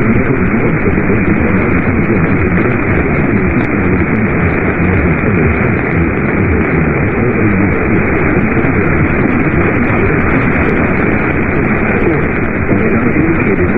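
Steady, loud radio static from a receiver on a weak or lost signal, the audio band-limited like a narrowband radio channel.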